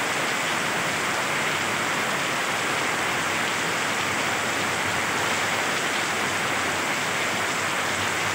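Heavy monsoon rain pouring down, a steady, even hiss that does not let up.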